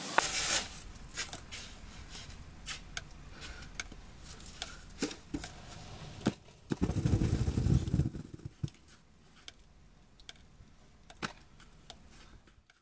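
Snow shovel scraping and knocking on a paved walk in repeated short strokes. About seven seconds in there is a loud low rumble lasting about a second, as a mass of snow comes down onto the walk.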